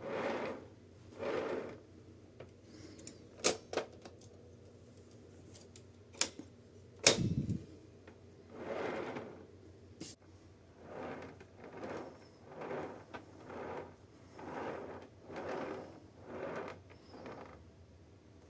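Clicks and knocks of a 1917 Corona 3 folding typewriter being handled and moved, with one louder knock about seven seconds in. Soft brushing sounds come about once a second near the end.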